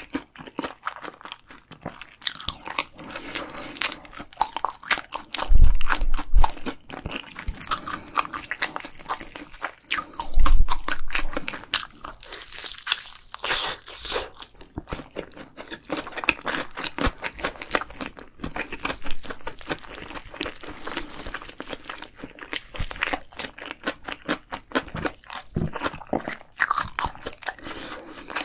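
Close-miked crunching and chewing as sauced Korean fried chicken (yangnyeom chicken) is bitten and eaten, a dense run of crisp crackles. Two heavy low thumps stand out, about five and ten seconds in.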